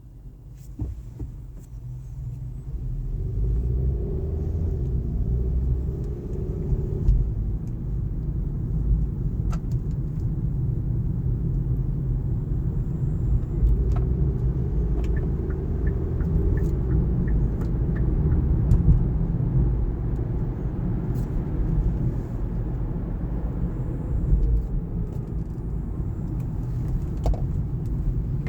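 Low road and tyre rumble of a 2019 Kia Niro driving, growing louder over the first few seconds and then steady.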